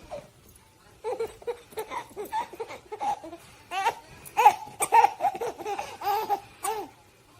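A baby laughing in a long string of short, gleeful bursts, beginning about a second in and stopping shortly before the end.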